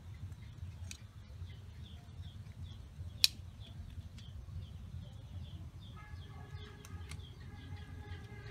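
Metal tongs clicking against a wire grill rack: one sharp clack about three seconds in and a few lighter clicks. Over a low steady rumble, a small high chirp repeats about three times a second, and a steady pitched drone joins near the end.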